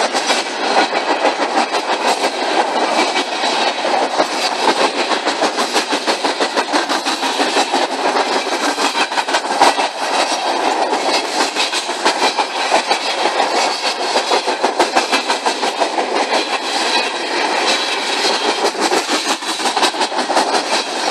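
CSX freight train's cars, intermodal container cars and then boxcars, rolling past at speed close by. The wheels make a loud, steady, continuous rumble with a rapid run of clicks and clatter.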